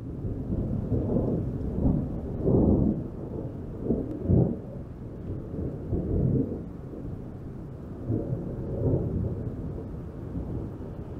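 Thunder rumbling on and on, swelling louder several times, with the strongest swell a little before halfway.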